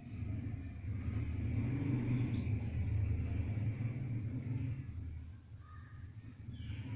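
Low, steady rumble that swells about a second in and eases off near the end.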